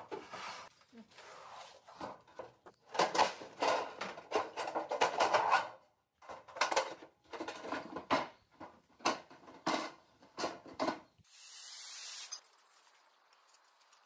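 Thin sheet metal being handled and shaped by hand on a wooden bench: a run of scraping, rubbing and rattling strokes. Some come close together, then single strokes about half a second apart.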